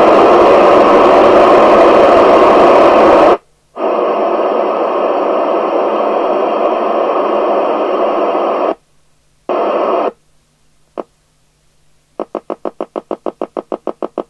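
Loud static hiss from a 1981 Binatone Breakerphone FM CB radio, cutting out and coming back several times as the set is switched over. Near the end comes a fast train of short hiss pulses, about seven a second.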